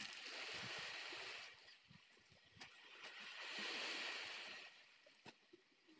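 Faint rustling and crinkling of a large clear plastic sheet being shaken out and spread over beach pebbles, then a banana leaf laid and smoothed on top, in two swells with a single sharp click about five seconds in.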